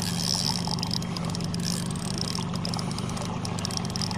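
Boat's outboard motor running steadily at trolling speed, with water rushing along the hull.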